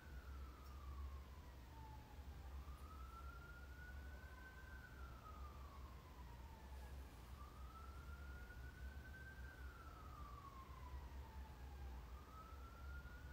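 Faint emergency-vehicle siren in a slow wail, its pitch rising and falling about every four and a half seconds, over a low steady hum.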